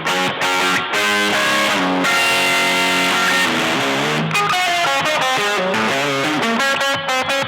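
Electric guitar played through an EarthQuaker Devices fuzz pedal, a distorted tone: strummed chords left ringing, then short, choppy notes with brief gaps near the end.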